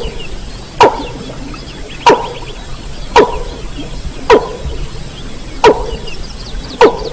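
Mandar (rail) call played as a hunting lure recording: sharp call notes that drop quickly in pitch, repeated about once a second, six in all.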